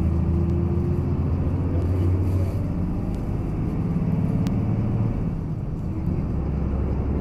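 Steady low rumble of arena background noise, with a few faint clicks.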